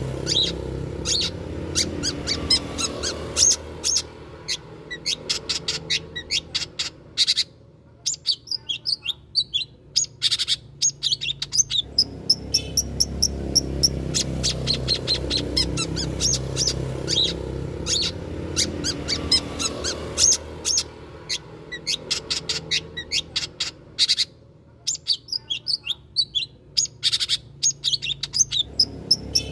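Long-tailed shrike (cendet) singing: rapid chattering phrases of sharp chirps and clicks with short pauses between them, played as a lure call. A low background rumble swells and fades underneath.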